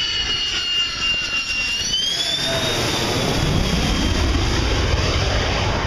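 A Thunderbirds F-16 Fighting Falcon flies low overhead on its recovery to land. Its high turbine whine falls, then rises again about two seconds in, as a deep jet roar swells over the rest.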